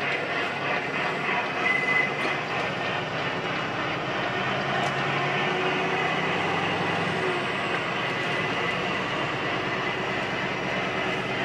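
Steady engine and road noise inside a semi-truck's cab as the tractor-trailer rolls along.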